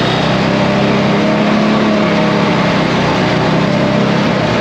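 ATV engine running steadily while riding, loud and close to the microphone over a constant rush of noise.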